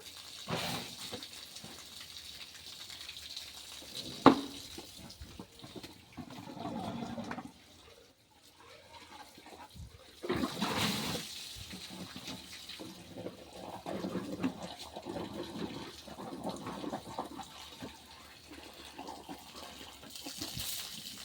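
An elephant bathing itself, water splashing and pouring in uneven gushes, with one sharp knock about four seconds in.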